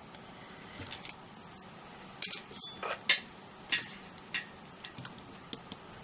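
A run of about eight or nine light, sharp clicks and taps at uneven spacing, starting about two seconds in, as a sequin-filled shaker pocket is handled and sealed on the craft table.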